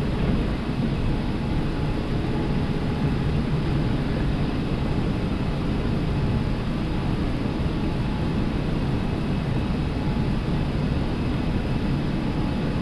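Steady flight-deck noise of an Airbus A380 climbing out just after takeoff: a constant rush of airflow and engine rumble.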